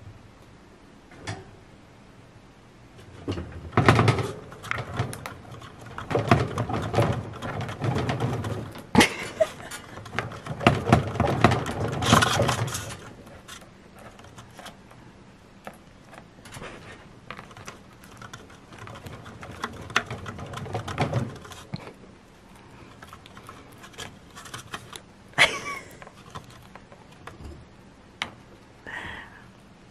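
Chinchillas moving about in a wire cage: bursts of scratching and rustling with quick runs of sharp clicks, the loudest stretch about three to thirteen seconds in and another around twenty seconds.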